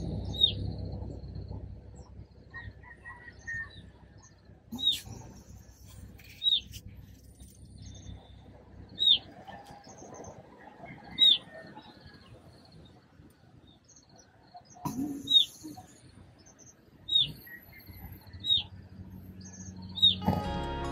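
A bird calling outside at dawn: about ten short, sharp, high chirps, one every second or two, over a faint low background hum.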